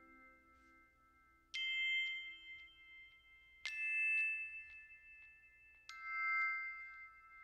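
Background music of bell-like chime notes: three notes struck about two seconds apart, each ringing on and slowly fading.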